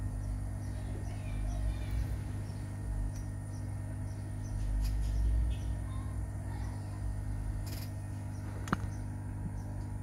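A steady low electrical hum, with a few dull handling bumps and one sharp click late on.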